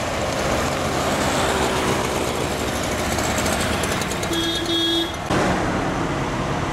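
Motor vehicle engines running in traffic held up on the road, with a vehicle horn sounding in two short honks about four and a half seconds in.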